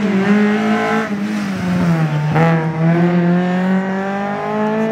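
Tarmac rally car's engine under hard acceleration: its pitch climbs, drops sharply at a gear change about two and a half seconds in, then rises steadily again.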